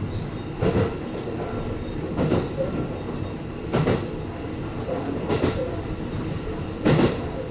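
E257 series electric train running, heard from inside the front car: a steady rumble with the wheels knocking over rail joints about every second and a half.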